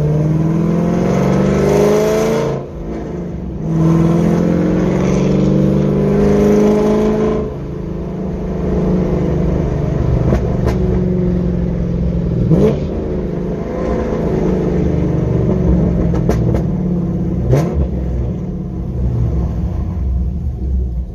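Camaro SS V8 with an aftermarket header accelerating hard: the revs climb, drop at an upshift about two and a half seconds in, then climb again until about seven and a half seconds in, after which the engine settles to lower, steadier running.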